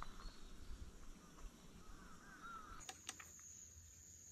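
Faint evening outdoor sound: a few birds chirping in the first half, then a steady high-pitched insect trill that starts about three seconds in, with a few soft clicks around then.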